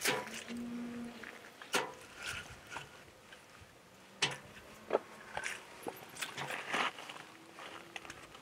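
Split firewood logs clunking against each other as they are stood upright one at a time against a stove stand: about five sharp wooden knocks spread out, with quieter handling sounds between.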